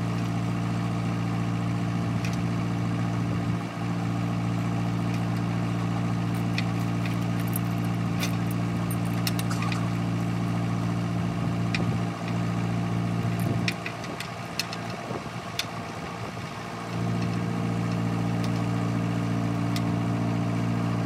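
Tractor backhoe's engine idling steadily, with a few light metallic clinks from the chain rigging being handled. The engine hum drops lower for a few seconds about two-thirds of the way through.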